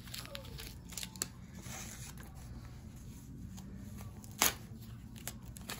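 Small plastic packaging pieces being worked off a doll's hands and feet: soft rustling and light clicks, with one sharper click about four and a half seconds in.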